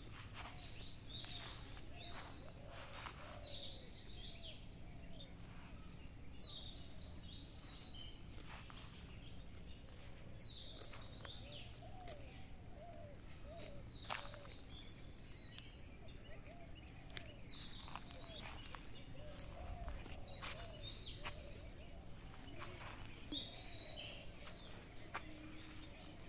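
A bird calling, the same short falling call repeated about every three seconds, over steady outdoor background noise with scattered faint clicks.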